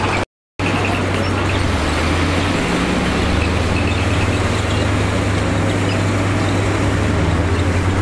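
Heavy diesel engine of earthmoving machinery running steadily under load, with a low, even engine drone and a wash of mechanical noise. The sound cuts out completely for a moment just after the start, then resumes.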